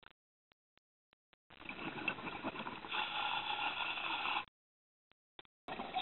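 Scuba diver's exhaled bubbles from the regulator, heard underwater: a rush of bubbling about three seconds long, starting about a second and a half in. It stops dead, and the next exhalation begins near the end.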